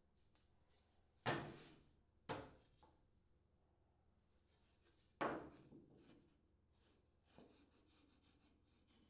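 Thin plywood piece knocking against a plywood boat hull as it is handled and set in place: three sharp wooden knocks, the first two about a second apart and the third a few seconds later, then a fainter knock.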